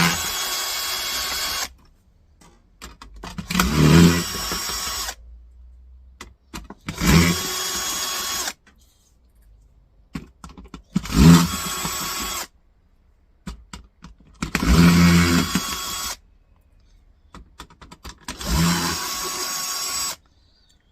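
Power drill-driver backing screws out of a docking station's casing: six short runs of the motor, each about two seconds long, with pauses between.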